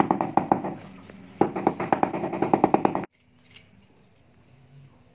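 Rubber mallet tapping a ceramic floor tile to bed it level, a quick run of knocks at about seven a second with a short pause about a second in. The tapping stops abruptly about three seconds in, leaving only faint room sound.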